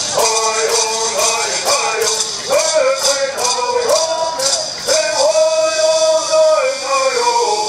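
Men singing a Southern California Native American bird song in unison, with gourd rattles shaken on a steady beat of about two strokes a second. The rattles stop about five seconds in while the singing holds a long note.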